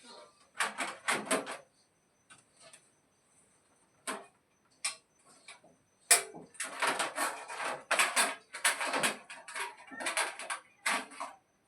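Irregular clicks, scrapes and rattles of hard parts being handled, in short bursts with quiet gaps, busiest in the second half.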